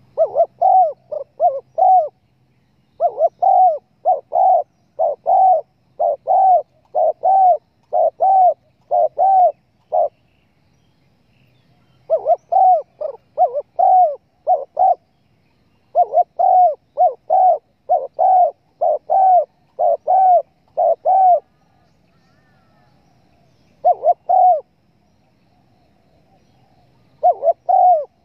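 Spotted dove (tekukur) cooing, played as a hunter's lure call: runs of several quick arching coos, separated by pauses of a second or two.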